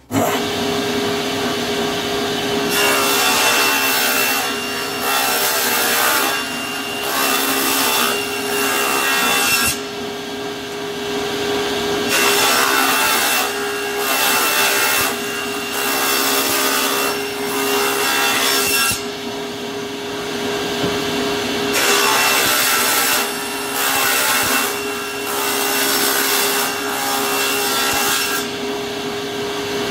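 Table saw ripping thin 5 mm strips from a caixeta wood board. The blade runs at a steady pitch, and the harsh cutting noise swells during long passes as the board is fed through, broken by a few brief pauses.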